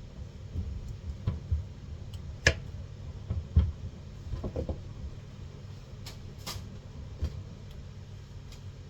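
Irregular light knocks and clicks of a knife and fruit being cut and handled on a board or plate, the loudest about two and a half and three and a half seconds in, over a steady low hum.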